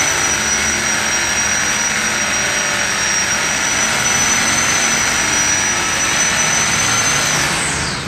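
Electric car polisher with a foam pad running steadily on a car's paintwork, a high-pitched motor whine over a steady whirr. Near the end the motor is switched off and the whine falls in pitch as it spins down.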